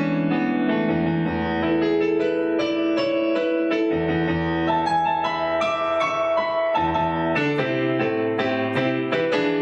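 Instrumental break of a song: keyboard, in an electric-piano sound, plays a moving melody over sustained bass notes, with no singing.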